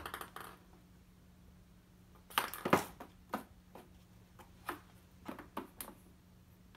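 A cat pawing and pouncing at a doormat: a scattering of short, sharp scrapes and taps, the loudest cluster about two and a half seconds in.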